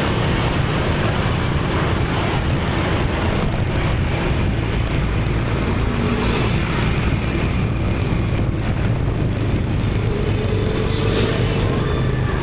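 Dense motorbike and car traffic heard from a moving motorbike: a steady wash of small engines and road noise. A faint steadier engine tone comes through near the end.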